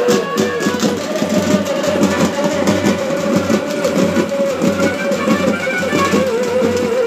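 Dappu frame drums beaten with sticks by a troupe in a fast, dense rhythm, with a held, wavering melody line over them.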